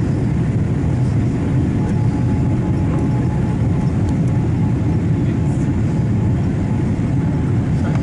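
Steady cabin noise of a Boeing 787-8 in flight, heard from a window seat: an even low rumble of engines and airflow. A faint steady whine joins about two seconds in.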